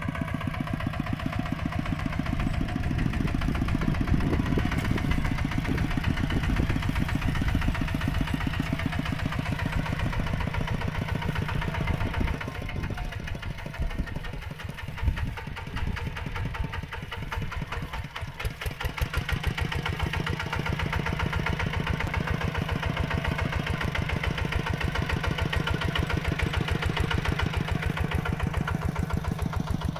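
Mini tractor's engine running with a steady, rapid chugging. It eases off and goes quieter for several seconds in the middle, with a single sharp knock about halfway through, then settles back to its earlier steady level.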